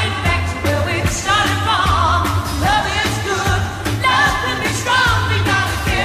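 Pop song with a singer over a steady drum beat and pulsing bass, played as a hockey team's goal song.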